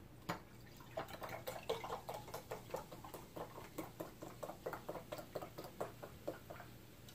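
Diet Coke glugging out of a large plastic bottle into a glass: a quick, uneven run of glugs, about three or four a second, that stops shortly before the end.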